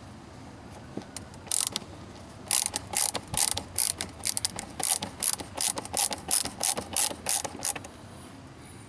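Ratcheting screwdriver with a T15 Torx bit clicking as it backs out a trim screw: a couple of clicks, then a run of quick clicks, about three or four a second, for about five seconds.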